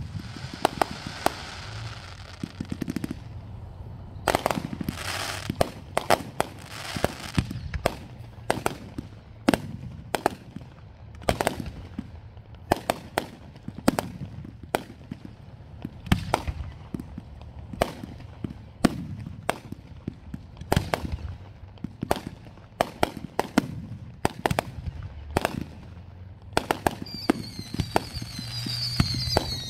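Fireworks display: aerial shells launching and bursting in a rapid, irregular string of sharp bangs. Near the end comes a cluster of high falling whistles.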